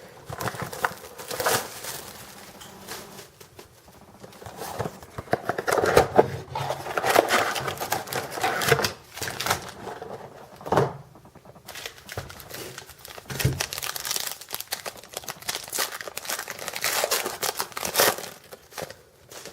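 Plastic trading-card pack wrappers crinkling and tearing as packs are opened and handled, in irregular bursts.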